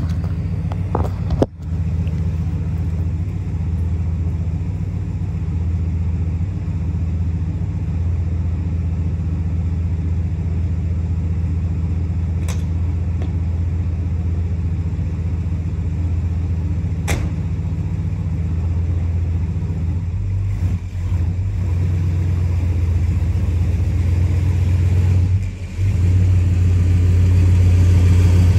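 Truck engine idling steadily with a low, even hum, and a sharp click about a second and a half in.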